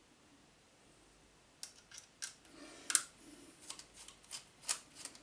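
Small sharp clicks and scrapes of a screwdriver and handled parts on a compact 18650 battery spot welder's board and case, starting about one and a half seconds in.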